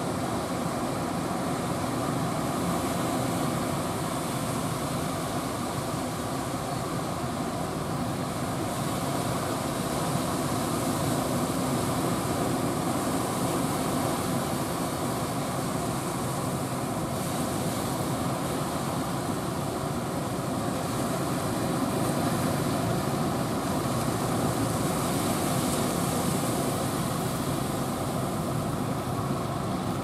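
Outboard engines of wooden outrigger fishing boats running steadily as the boats push through breaking surf, mixed with the rush of the waves.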